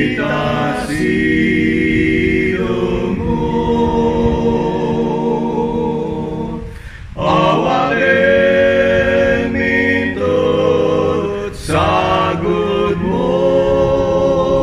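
One man's voice multitracked into a four-part a cappella hymn, singing slow held chords with no instruments. There are short breaks between phrases about seven and twelve seconds in.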